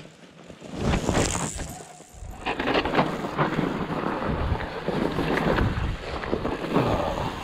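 Mountain bike descending a packed-snow trail: wind rushing over the bike-mounted camera's microphone, with the rumble and rattle of the bike over the snow. A rider passes close about a second in, and the steady rush begins about two and a half seconds in.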